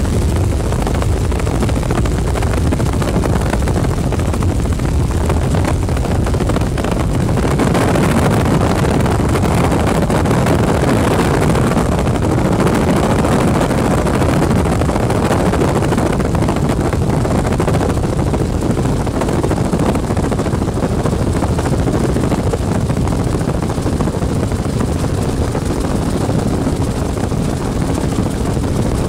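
Helicopter rotor and engine noise heard from inside the cabin in flight: a loud, steady drone with an airy rush on top.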